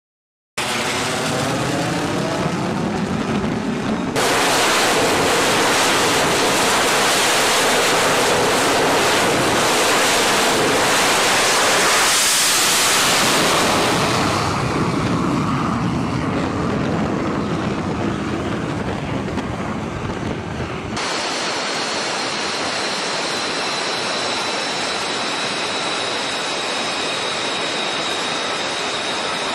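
Fighter jet engine noise on a carrier flight deck, in several cuts: a rushing sweep as a jet goes by, then a long loud roar of a jet taking off at full power that fades away. In the last third comes the steadier, whining run of an F-35C's engine as it taxis.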